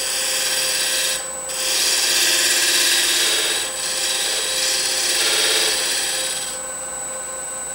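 Woodturning lathe running with a steady whine while a small square-ended scraper shaves the end grain of a spinning wooden tenon: a hissing scrape in about three passes that stops about two-thirds of the way through, the lathe's whine carrying on.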